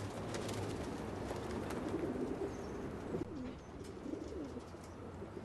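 Rooftop pigeons cooing, several low, overlapping coos in turn; the cooing drops to a softer level about three seconds in.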